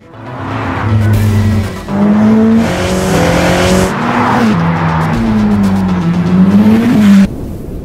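Sports car engine revving hard, its note stepping and gliding up and down as through gear changes, with a little tyre squeal. The sound cuts off suddenly a little after seven seconds in.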